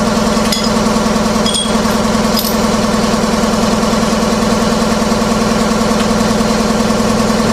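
A machine drones steadily with a strong low hum and engine-like overtones. A few light clicks come in the first couple of seconds.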